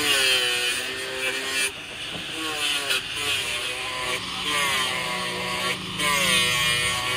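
Angle grinder grinding down the welded-up teeth of a steel helical gear pinion shaft, its whine dipping and rising in pitch again and again.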